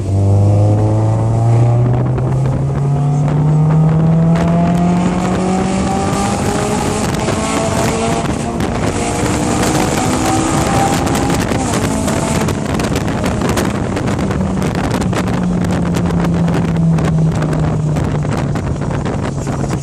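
Honda S2000's four-cylinder engine through an Invidia aftermarket exhaust, climbing slowly in revs over the first several seconds, easing off, then rising briefly again and dropping back near the end.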